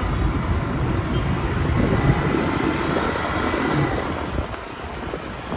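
Road vehicle noise: a steady low rumble of engine and road, easing off somewhat over the last second or so.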